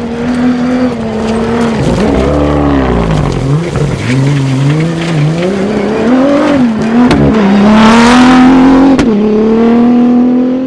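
Rally raid vehicle's engine revving hard, its pitch rising and falling repeatedly with gear changes and throttle lifts. It is loudest about eight seconds in, as it passes close, and there is a sharp click soon after.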